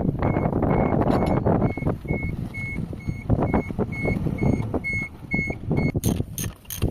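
A vehicle's reversing alarm beeping on one high tone, a little over two beeps a second, over a running diesel engine. The beeping stops about six seconds in.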